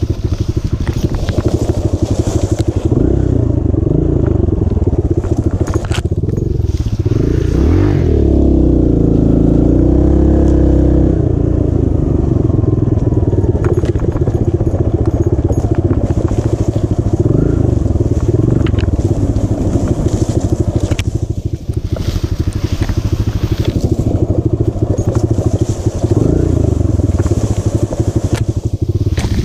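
Dirt bike engine running at low speed as it is ridden through tall grass and brush, its revs rising and falling with the throttle. It revs higher about eight seconds in and drops back about three seconds later. Grass and brush brush and scrape against the bike.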